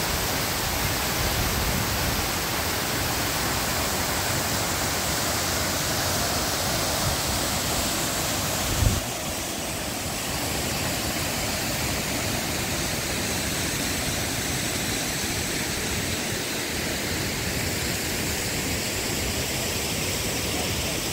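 Steady rushing of a waterfall about 100 metres high. There is one brief low thump about nine seconds in, after which the rushing is a little quieter.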